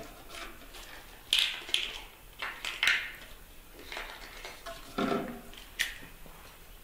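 Baby monkey chewing something crunchy with its hand at its mouth: a few sharp crunches and clicks, with a brief squeaky sound about five seconds in.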